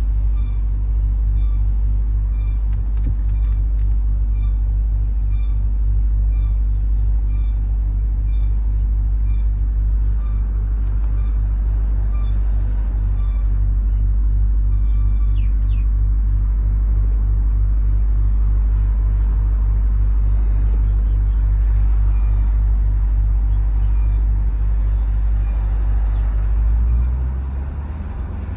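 Jeep Grand Cherokee Trackhawk being driven, with a steady low rumble and a short, high-pitched squeak that repeats about twice a second and fades out around halfway through. The rumble drops near the end.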